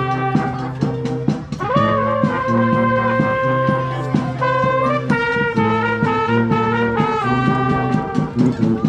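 Street brass band playing a tune, with trumpets and trombones holding notes over a repeating low bass line and an even drum beat.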